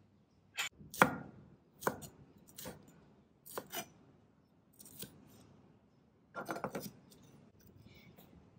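Chef's knife cutting a red bell pepper on a bamboo cutting board. Single knife strikes on the board come roughly once a second, then a quick run of chops a little past halfway.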